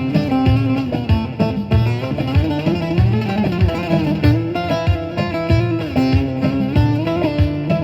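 Saz (bağlama) played with a plectrum, a fast melody of a Turkish folk dance tune (oyun havası), over a steady low beat.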